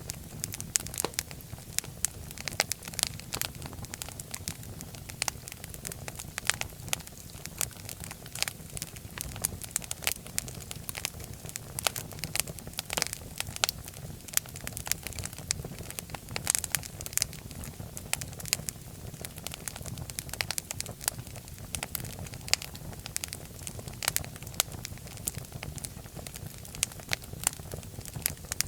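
Wood fire burning in a fireplace: a steady low rumble of the flames with frequent irregular sharp crackles and pops.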